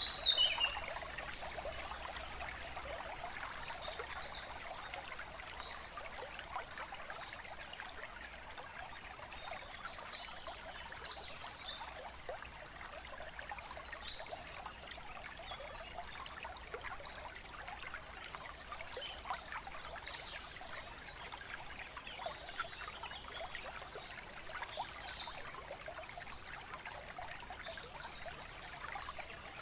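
Running water trickling steadily, with small birds chirping now and then and a brief cluster of louder bird calls right at the start.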